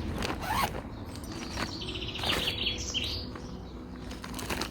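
Wrapping around a silicone mermaid tail being pulled off: rustling and flapping of the packaging, with a quick run of high chirps about two seconds in.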